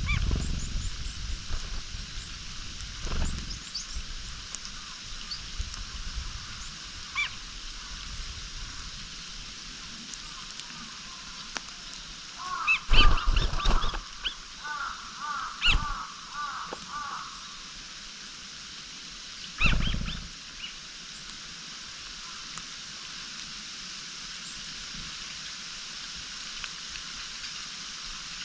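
Small wild songbirds calling: scattered short calls, then a quick run of about six repeated chirps about halfway through. A few sharp knocks are mixed in.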